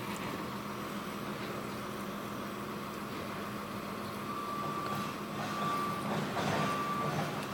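Doberman gnawing and tearing at a hand-held raw beef pot roast, loudest around six to seven seconds in, over a steady machine hum. Three short, even, high beeps sound in the second half.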